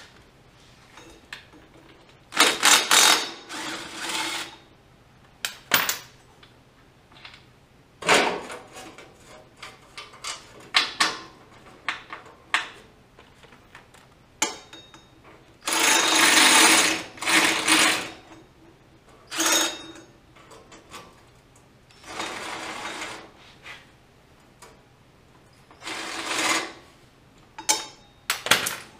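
Cordless impact driver run in short bursts of a second or two, several times over, spinning bolts in and out, with a rapid rattling hammer over its motor hum.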